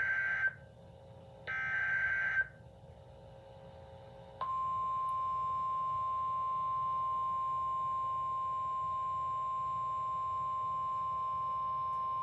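Emergency Alert System SAME header: the tail of one harsh, buzzing digital data burst, then another about a second later, each about a second long. About two seconds after that, the steady single-pitch 1050 Hz NOAA Weather Radio warning alert tone starts and holds without a break.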